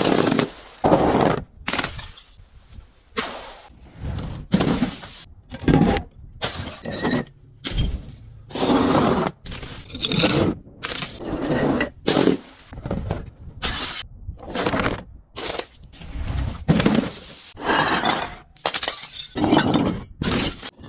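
Glass bottles shattering and crunchy objects being crushed, one short break after another about every second, each cut off abruptly.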